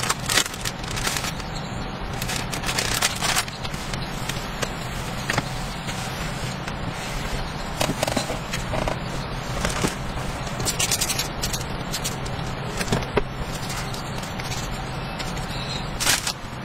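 A small plastic packet rustling and crinkling, then a cloth wiping and scraping across a wooden tabletop. There are scattered clicks throughout, a steady low hum underneath, and a sharper knock near the end.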